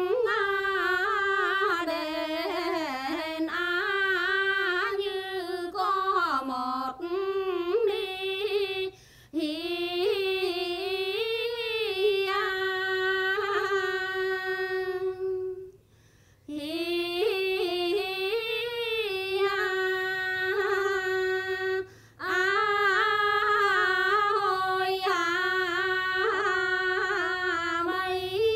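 A woman singing a Quan họ folk song solo and unaccompanied, in long held, wavering phrases with a few short breaks for breath.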